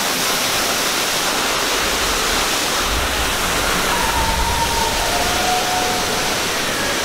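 Waterfall pouring into a pool: a steady, unbroken rush of falling water.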